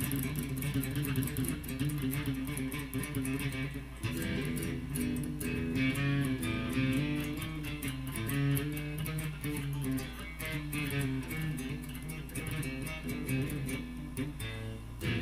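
Electric guitar played solo, a run of single picked notes and strummed chords that keeps changing pitch, over a steady low hum.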